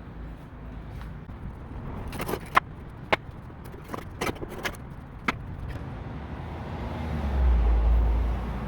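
Sharp knocks and clicks, about seven over three seconds, from the boards and nails of a wooden crate being taken apart. A low rumble swells near the end.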